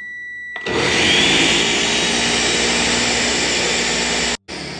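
Ninja countertop blender: a button beep, then about half a second in the motor starts with a rising whine and runs steadily at full speed, blending Dutch baby batter of eggs, flour and milk. It cuts off sharply about four seconds in.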